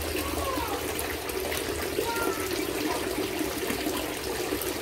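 Steady running water, a continuous splashing flow, with a few faint short chirps over it.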